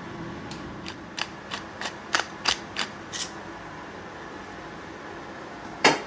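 A quick, irregular run of about eight sharp clicks, then one louder click near the end, over a steady low hiss.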